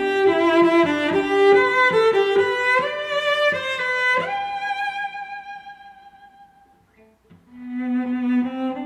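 Background instrumental music. A long held note fades almost to silence about seven seconds in, then the music picks up again.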